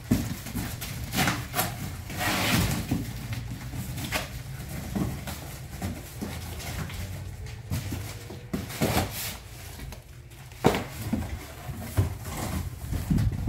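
Empty cardboard boxes being handled, lifted and folded: irregular rustling, scraping and knocks of cardboard, over a steady low hum.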